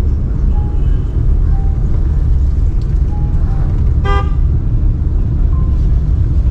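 Steady low rumble of a vehicle travelling on a road, with one short horn toot about four seconds in.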